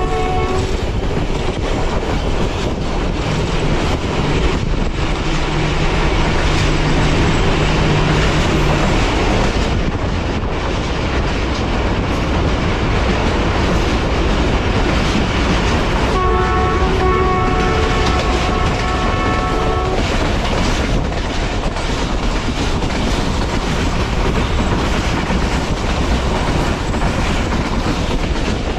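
Passenger train running at speed, heard from on board: a steady rush of wheel, track and wind noise. The locomotive's multi-tone horn is cut off about half a second in and sounds again for about four seconds a little past the middle.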